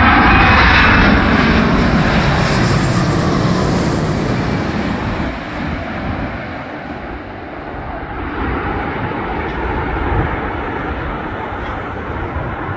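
Boeing 787-9 airliner's jet engines passing low overhead on final approach: loud at first, with the engine whine falling in pitch as the plane moves away, then fading.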